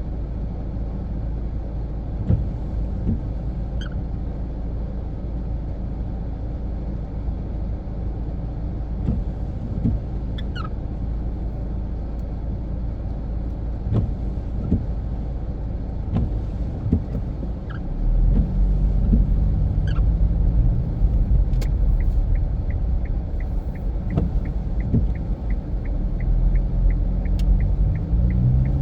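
Infiniti Q50 Red Sport's twin-turbo V6 and tyre rumble heard from inside the cabin while driving on snowy roads. About two-thirds of the way through, the engine note rises as the car accelerates, and near the end a quick, regular ticking sets in.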